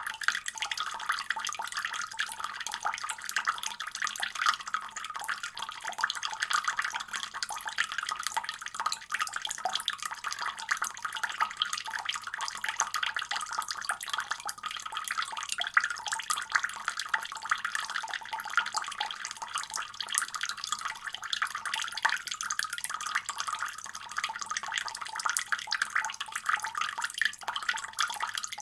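Water running steadily from a faucet, its stream splashing in an even hiss.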